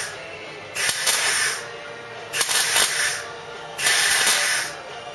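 MIG welder laying a butt weld on the Cortina's steel bulkhead panel, sizzling and crackling in short runs of about a second each, three runs with brief pauses between them.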